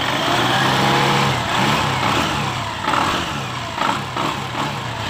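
Honda Beat eSP scooter's single-cylinder engine and open CVT drive running on the centre stand, with the rear wheel spinning freely. The throttle is blipped, so the engine revs up and back down several times. This is a test run after the worn roller housing and rollers were replaced, to check that the rough knocking from the CVT is gone.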